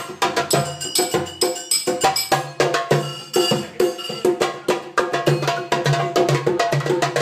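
Live music with a hand drum struck rapidly by hand, many sharp strikes a second, over sustained pitched notes from other instruments.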